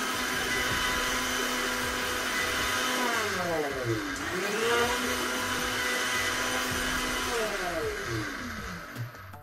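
Sujata mixer grinder's motor running steadily as it blends roasted tomatoes into ketchup. About three seconds in, its whine falls away as it is switched off and rises again as it is switched back on, and near the end it winds down to a stop.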